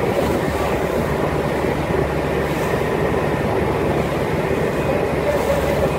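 Motorboat under way, its engine running steadily with a low drone mixed into the rush of water and wind.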